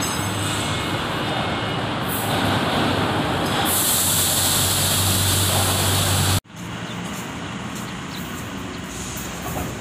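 Steady machinery noise with a low hum in a galvanizing workshop. A loud hiss joins about three and a half seconds in. Everything cuts off abruptly about six seconds in, giving way to quieter steady background noise.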